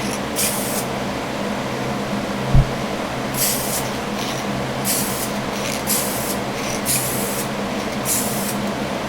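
Short hissing bursts of spray paint, about six brief passes a second or more apart, over a steady low hum from a fan. One dull thump about two and a half seconds in.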